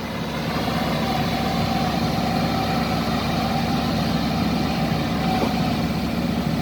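Bulldozer's heavy diesel engine running steadily under load while pushing up a sandy slope. It swells over the first second, then holds an even note.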